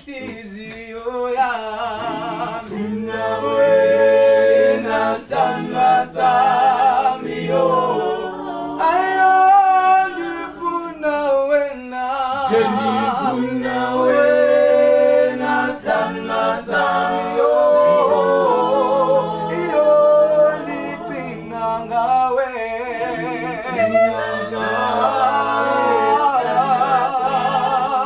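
A mixed group of men and women singing a cappella in harmony, with wavering lead voices over a low sustained bass part.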